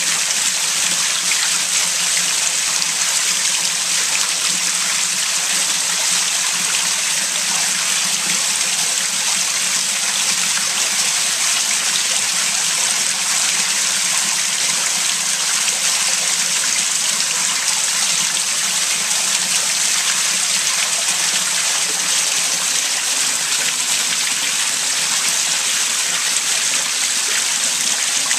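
Sewage water churning and rushing up into a basement toilet bowl, a steady hiss that doesn't let up: the sewer backing up through the toilet during heavy rain.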